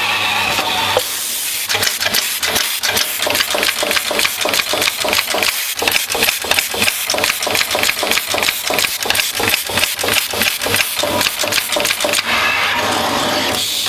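Eyelet pin insertion machine's heads knocking in a rapid, even rhythm, about four strokes a second, as they set eyelet pins into a circuit board. A steadier machine noise is heard at the start and again near the end.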